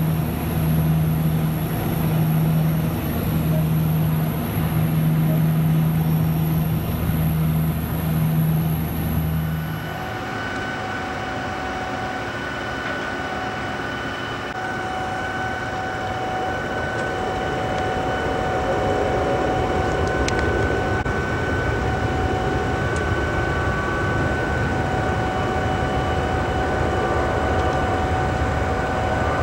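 Aircraft engine drone heard from on board, a strong low hum that throbs slowly. About ten seconds in it gives way to the steady whine of a DC-10 airtanker's jet engines as it taxis, growing louder in the second half.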